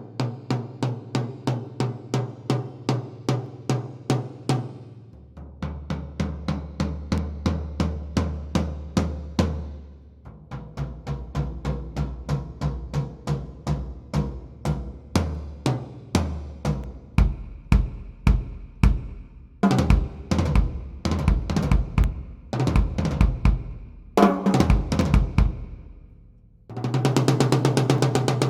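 Sakae Trilogy drum kit with 3-ply maple/poplar/maple shells being sound-checked: a tom struck in even strokes about four a second, then lower toms in turn about five and ten seconds in. From about seventeen seconds in the bass drum and cymbals join in mixed kit playing, and a fast roll starts near the end.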